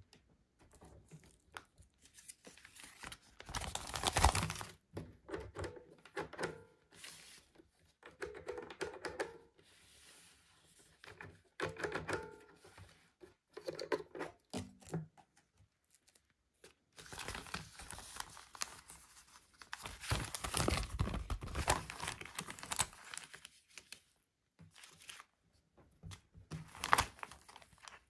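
Crinkling and tearing of packaging handled by hand, in several separate bursts, the longest in the second half.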